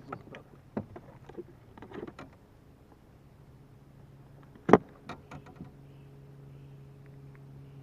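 Scattered clicks and knocks of handling aboard a fishing boat, with one loud sharp knock about halfway through. A steady low electric motor hum comes on shortly after.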